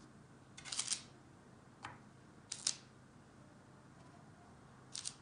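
Short light clicks and taps of baked cookies being lifted off a parchment-lined baking tray and set down one by one on a slate serving board, in four brief clusters, the loudest about a second in.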